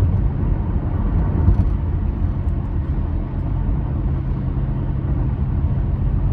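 Steady low rumble with no breaks or rhythm.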